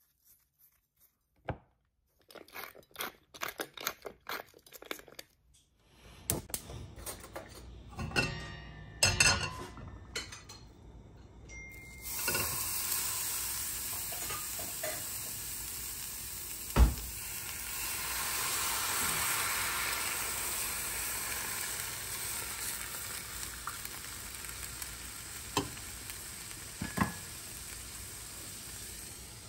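Quick ticks and the clatter of a pan and utensils, then water suddenly hits a hot nonstick skillet holding a lobster tail and sizzles steadily as it steams, slowly dying down. One sharp knock comes about seventeen seconds in.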